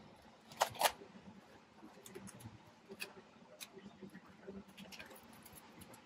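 Two sharp clicks close together near the start, then a few faint scattered ticks, as small parts are handled by hand.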